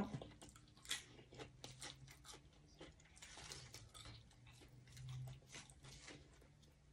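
Faint chewing of fresh herb leaves close to the microphone: a scatter of small crunches and wet mouth clicks.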